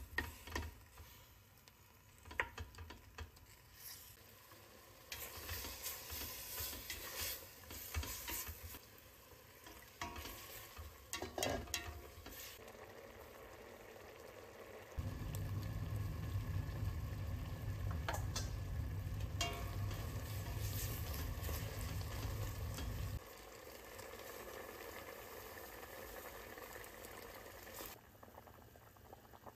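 Beef and seaweed sizzling as they are stir-fried in sesame oil in a stainless steel pot, with a spoon scraping and stirring against the pot. Partway through, a steady low hum comes in for several seconds and then stops.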